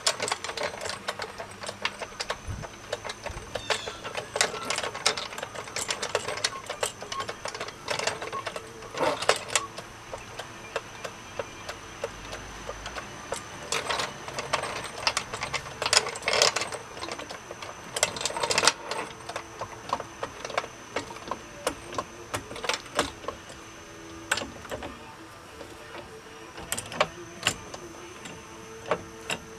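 Hydraulic floor jack being pumped by its handle, its handle and pump linkage clicking and clacking irregularly stroke after stroke as the saddle lifts a wooden block up under the gas tank.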